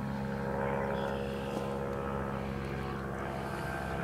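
A steady machine hum with several held tones, running evenly throughout.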